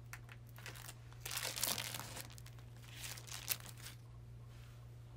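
Thin plastic film from a compress sheet crinkling and crackling as it is handled and pulled away, in irregular bursts, loudest about a second in and again around three seconds, then stopping.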